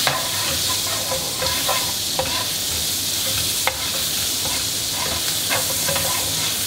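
Beef pieces sizzling as they brown in hot olive oil and butter in a frying pan. A steady hiss runs throughout, with the spatula clicking and scraping against the pan half a dozen times as the meat is stirred.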